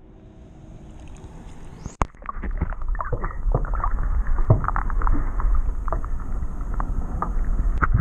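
Lake water heard from inside a submerged camera housing: a muffled, low sloshing rumble with many small clicks and bubbles. It begins with a sharp knock about two seconds in, as the camera goes under during the release of a largemouth bass.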